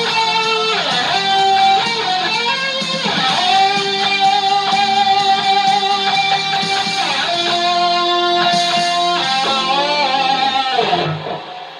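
Electric guitar playing a lead solo: held notes with several string bends. The playing stops about eleven seconds in and the last note fades.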